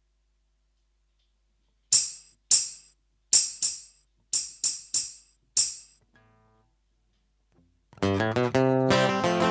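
Finhol Stompcon stomp box played as a percussion voice: eight sharp, bright, jingly hits in an uneven rhythm, each ringing briefly. Acoustic guitar strumming comes in near the end.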